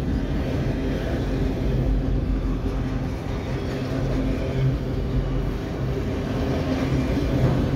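Freight train's autorack cars rolling past on the rails: a steady low rolling noise of steel wheels on track.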